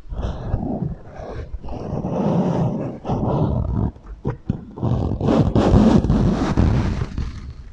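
Long scraping and rubbing sounds on a handled object, run through a heavy echo effect so that they smear into a roar-like wash, in three long strokes with short breaks between them.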